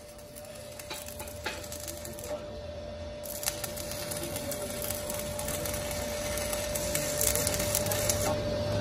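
Stick-welding arc crackling and sizzling steadily as a bead is laid on a steel truck wheel rim, growing louder about three seconds in, with a steady faint tone underneath.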